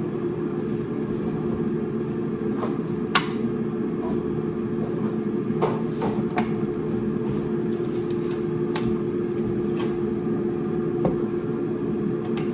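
Air fryer running: the steady hum of its fan, one constant tone over a low drone. Over it, a few sharp clicks and knocks of a knife and vegetable peeler being handled on a wooden cutting board.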